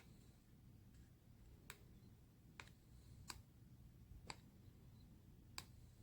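Near silence, broken by five faint, sharp clicks at irregular intervals.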